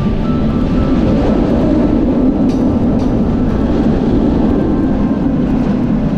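Bolliger & Mabillard steel roller coaster train running through its track elements: a loud, steady rumble and rush of air.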